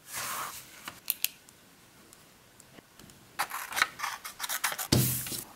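Scissors cutting through a small sheet of paper: a brief rustle and two light clicks, then a run of quick crisp snips starting a few seconds in. A dull thump near the end is the loudest sound.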